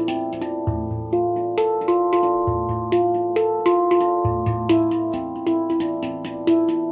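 Baopan handpan with a low A2 note, played by hand: quick ringing melodic notes and sharp fingertip taps, over a deep bass note struck about every two seconds.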